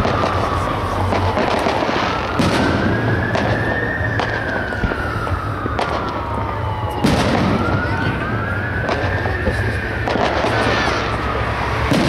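Aerial firework shells bursting with sharp bangs, the loudest about two, seven and twelve seconds in, with smaller pops and crackle between. Behind them a siren wails, its pitch slowly rising and falling.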